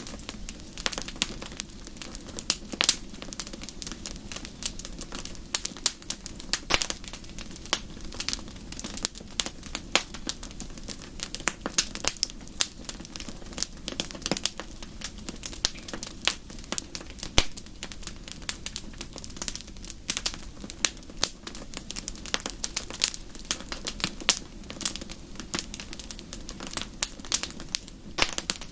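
Wood fire crackling in a fireplace: frequent irregular sharp pops and snaps over a steady low rumble of burning.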